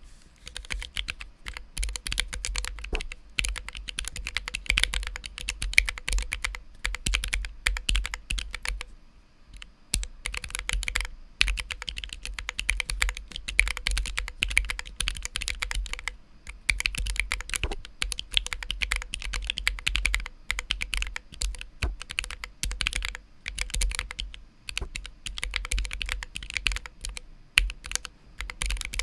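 Continuous typing on a Planck low-profile 40% ortholinear mechanical keyboard with Tangerine 62g linear switches lubed with Krytox 205g0, GMK Olive keycaps and a foam-damped case: a fast, uneven run of keystroke clacks with a short pause about nine seconds in.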